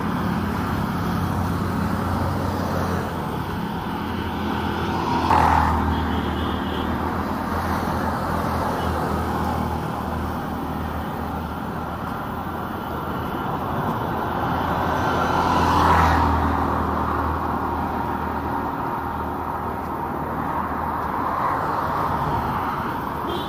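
Steady road traffic, with a vehicle passing close twice: once about five seconds in and again about sixteen seconds in.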